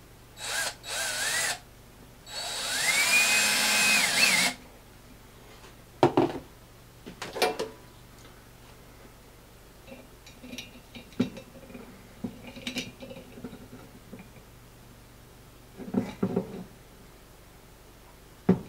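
Cordless drill driving a screw into a wine bottle's cork: a short burst, then a run of about two seconds whose motor whine rises in pitch and holds. After it come scattered knocks and clicks of pliers gripping and pulling on the screw in the cork.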